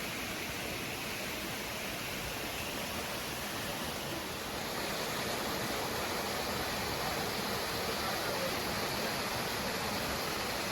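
Waterfall rushing: a steady wash of falling water, slightly louder about halfway through.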